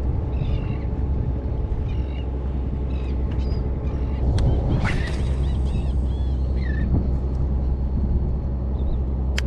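Birds calling again and again in short, curved calls over a steady low rumble of wind and water.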